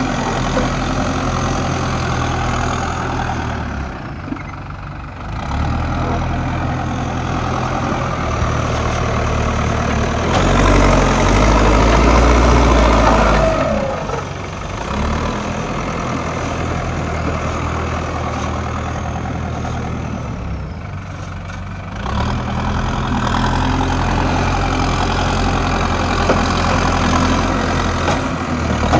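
Diesel engine of a JCB digger running steadily. It eases off briefly a few seconds in and again around twenty seconds, and revs up loudest and deepest between about ten and thirteen seconds in.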